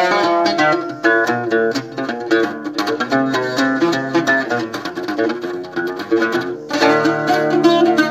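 Mandole, the long-necked Algerian chaabi lute, played with a plectrum: a fast instrumental passage of picked melody notes over strummed chords. It thins out briefly near the end, then comes back fuller.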